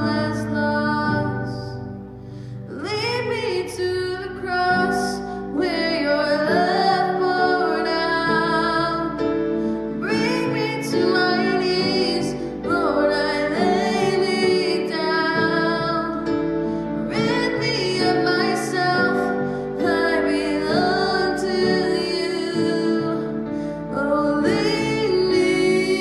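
A woman singing a worship song over instrumental accompaniment, her sung phrases resting on steady held chords.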